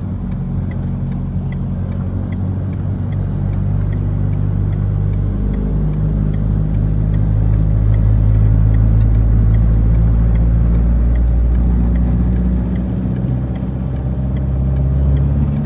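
Car driving along a paved road: steady engine and tyre noise, shifting slightly in pitch as the speed changes.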